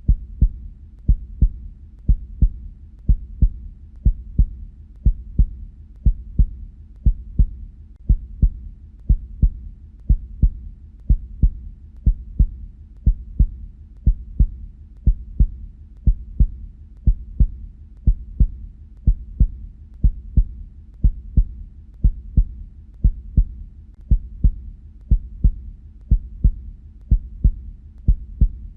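Heartbeat: paired lub-dub thumps, about one beat a second, steady and even. This is the sound of the heart valves closing.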